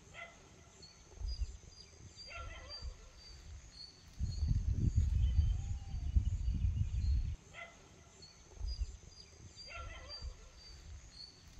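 Short animal calls repeating every two to three seconds, with a louder low rumbling noise from about four to seven seconds in.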